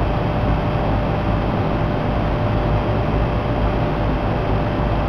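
HVAC air handler running steadily, its blower pushing a constant rush of air, with a faint steady tone over it.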